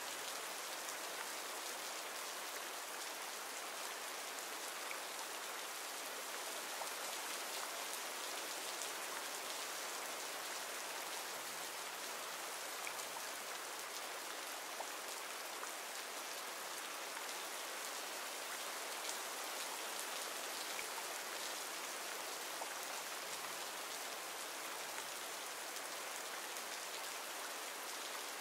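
Steady rain ambience from a sound-library recording: an even hiss of rainfall with a fine patter of drops.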